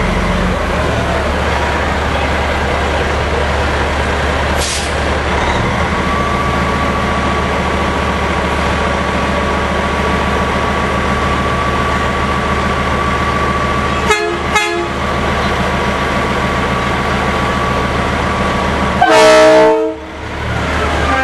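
Diesel engine of a big-rig tow truck running steadily as it rolls slowly by. Its air horn gives two quick toots past the middle, then one loud blast about a second long near the end.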